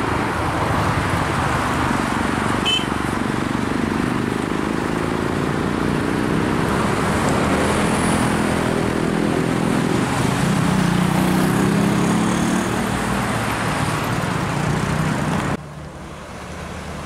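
Expressway traffic with a MAN TGX tractor unit hauling a container trailer passing close by: diesel engine and tyre noise, with the engine note shifting in pitch and loudest a little past the middle. Near the end the sound drops abruptly to quieter, more distant traffic.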